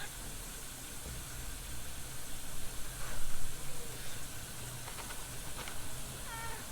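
Domestic cat meowing once, starting near the end, over a steady background hiss, with a short louder noise about three seconds in.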